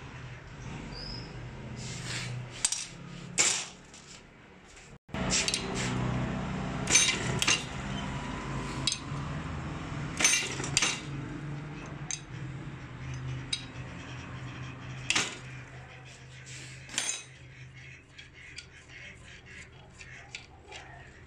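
Small steel diesel injection-pump parts clinking against a stainless-steel bowl and against each other as they are set down and handled: a series of sharp, irregularly spaced metallic clinks over a low steady hum.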